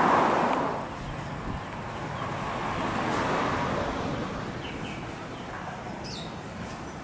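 Jet aircraft noise: a loud rush that drops off within the first second, swells again around three seconds in, then settles to a lower steady level. Short high bird chirps come near the end.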